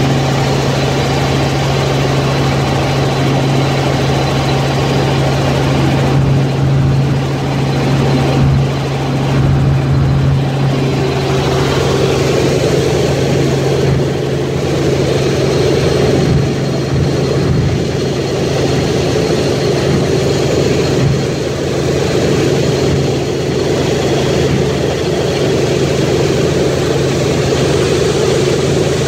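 Light helicopter in cruise heard from inside the cabin: a loud, steady drone of engine and rotors with a strong low hum under a rushing noise.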